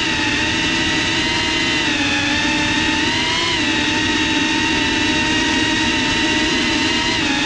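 FPV quadcopter's motors and propellers whining steadily as it hovers, heard close-up from the camera mounted on the drone. The pitch dips and rises slightly with small throttle changes, about two and three and a half seconds in and again near the end.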